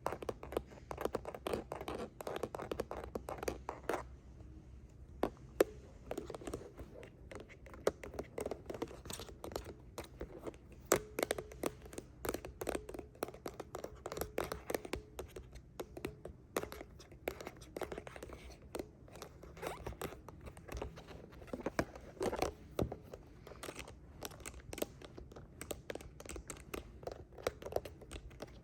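Fingernails scratching and tapping on handheld devices: a dense run of quick, sharp taps and scrapes, with a brief lull about four seconds in.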